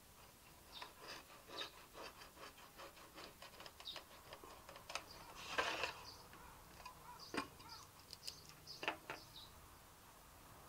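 A pen scratching on paper as it traces around a mess tin, guided by a metal washer riding against the tin's side, in a run of small scratches and clicks. A longer, louder scrape comes about halfway through as the tin is turned, with a few sharper clicks afterwards.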